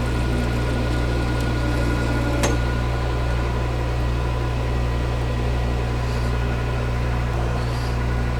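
Metal lathe running steadily: a constant low motor hum with a few thin steady whines above it. A single sharp click comes about two and a half seconds in.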